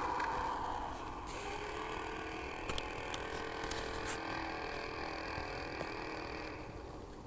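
Horror-style creature sound effect: a low, steady droning hum with a few sharp clicks and creaks, fading a little near the end.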